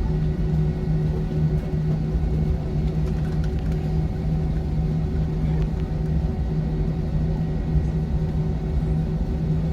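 Steady cabin noise of a jet airliner taxiing after landing: a constant low rumble with a steady hum running through it.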